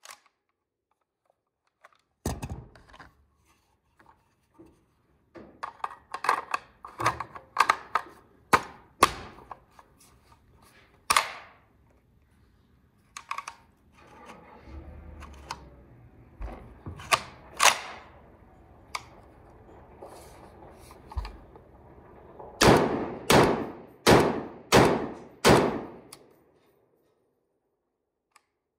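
Sharp metallic clacks and clatter of a CETME C rifle's action being worked by hand: the magazine seated, the cocking handle slapped and the bolt let go. Near the end comes a quick run of about six loud clacks, each a fraction of a second apart.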